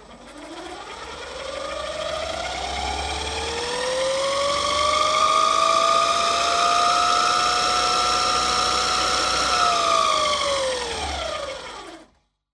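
ME1306 10 kW 48 V synchronous electric boat motor whining under throttle. The whine climbs in pitch over the first few seconds as the lever is pushed forward, holds steady, then falls as the throttle is brought back, and it stops shortly before the end.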